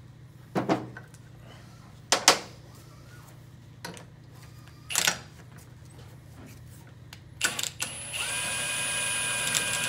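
Three sharp metal clanks as a three-jaw puller is set up on a steel CVT pulley. About eight seconds in, a cordless power tool starts running with a steady whine, spinning the puller's centre screw.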